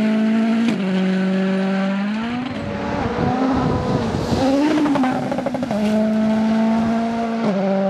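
Ford Fiesta RS WRC rally car's turbocharged four-cylinder engine held at high revs on a gravel stage, with gear changes stepping the pitch about a second in and again near the end. In the middle the note wavers and jumbles as the car goes past.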